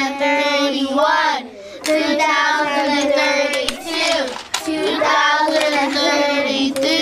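A high singing voice holding long, steady notes, with two short breaks. It cuts off abruptly at the end.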